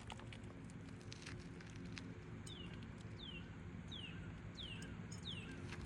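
A bird calling outdoors: five short down-slurred whistled notes, about one every 0.7 s, after a few faint clicks near the start.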